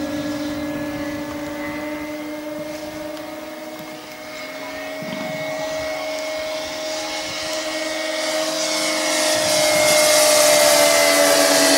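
Electric motors and propellers of several E-flite Cessna 150 foam RC model planes in flight: a steady whine of several close tones that drift slowly in pitch. It fades slightly, then grows louder and hissier as the planes come closer in the last few seconds.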